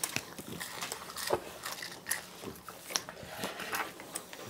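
Ice cream being eaten: scattered mouth smacks, slurps and bites, with small clicks and rustles from wooden spoons, paper cups and wrappers.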